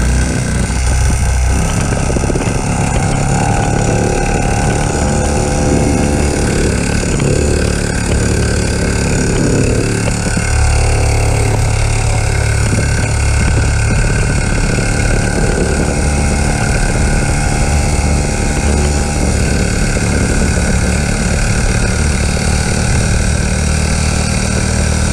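Small 50cc pit bike engine running steadily, its pitch rising and falling a little in the first ten seconds, then settling.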